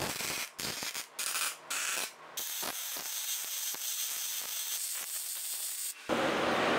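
Wire-feed (MIG) welder arcing on thick steel plate: a crackling hiss that stops and starts several times in the first two seconds, then runs as one continuous bead for about three and a half seconds before cutting off sharply.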